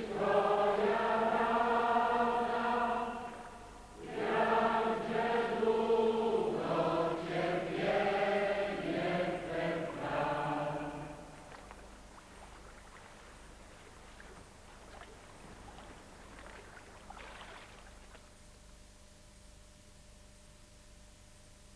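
Choir singing slow, held notes in two long phrases, the second ending about eleven seconds in, after which only faint background remains.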